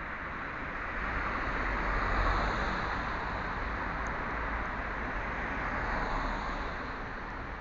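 Road traffic: the tyre and engine noise of passing cars swelling and fading, loudest about two seconds in and again around six seconds.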